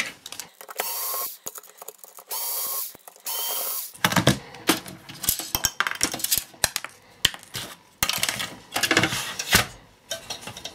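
Small cordless electric screwdriver whirring in three short runs, backing out a screw from a metal drive bracket, followed by a string of clicks and metallic knocks as the sheet-metal chassis is handled and turned over.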